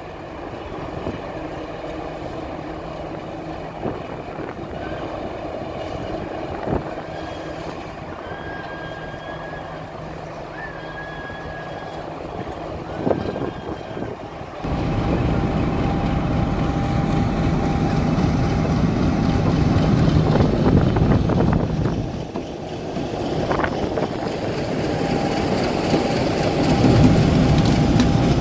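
British Rail Class 50 diesel locomotive's English Electric V16 engine running, heard fairly distantly for the first half, then much louder and close from about halfway through, with a steady whine over the engine note as the locomotive moves slowly past.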